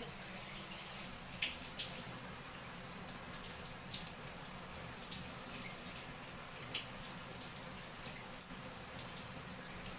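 Tap water running steadily, with scattered small splashes and drips.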